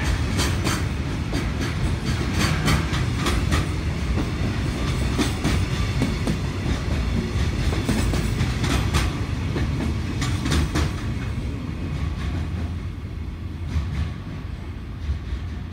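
A departing freight train's container wagons roll past, a steady rumble with the wheels clacking over rail joints. The rumble and clacks fade after about eleven seconds as the last wagon goes by.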